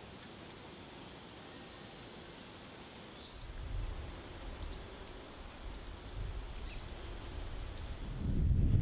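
Songbirds calling in short high chirps over a steady hiss of outdoor ambience. Wind gusts rumble on the microphone from a few seconds in and grow much stronger near the end.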